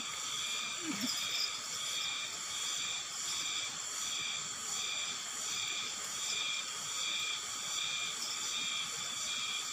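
Steady chorus of insects, several high droning tones that swell and fade about once a second.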